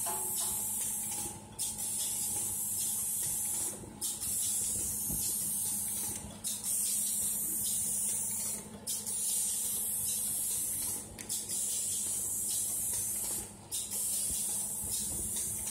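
Automatic rotary eye-drop filling and capping machine running: a continuous hiss of compressed air from its pneumatic system, cut off briefly about every two and a half seconds, over a steady machine hum.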